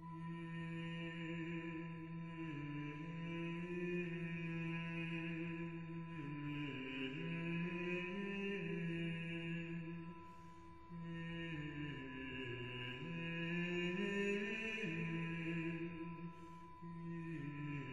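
Background music: a slow chant with long held notes that move up and down in steps.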